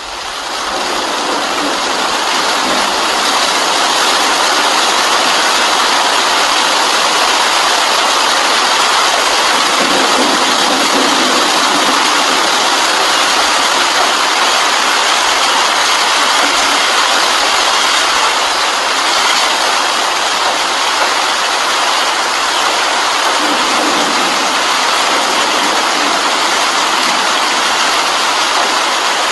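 Heavy rain falling steadily, a loud even hiss that fades in over the first second or two.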